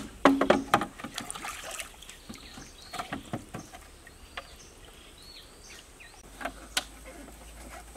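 Hollow green bamboo poles knocking against each other as they are shifted into place: a quick cluster of knocks in the first second, some with a short hollow ring, then scattered single knocks. Faint bird chirps in the background.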